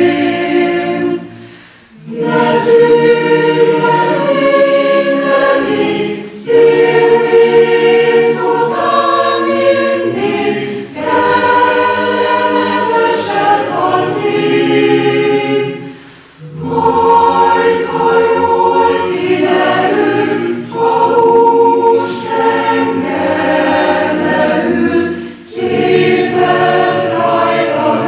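Chamber choir singing in parts: sustained phrases broken by short pauses, with longer breaks about two seconds in and again around sixteen seconds.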